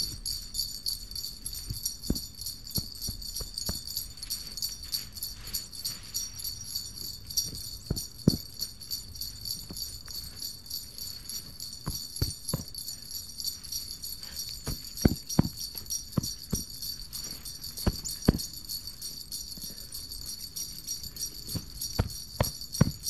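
Sleigh bells jingling in a fast, steady rhythm as background music, with scattered soft thumps and clicks underneath.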